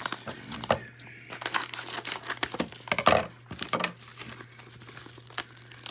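Crinkling and tearing of package wrapping as a mailed package is opened by hand, in an irregular run of crackles with a louder rustle about three seconds in.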